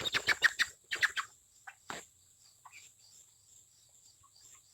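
Young meat chicken calling as it is handled on the scale: a quick run of rapid chirps in the first second and a half, then a single sharp knock about two seconds in, then only a few faint peeps.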